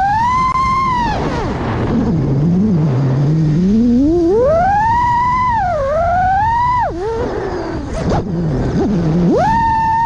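Xing-E 2207 2450KV brushless motors on a 5-inch FPV quadcopter whining, the pitch swooping up and down with throttle: high at the start, falling low after a second or so, climbing back about four seconds in, dropping sharply near seven seconds and surging high again near the end. Heard from the camera on the quad; the pilot suspects the tune may be causing P-term oscillations.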